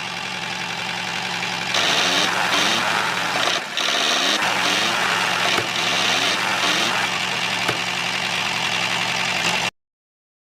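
A small motor running steadily with a constant hum. It gets louder and buzzier about two seconds in, and cuts off abruptly near the end.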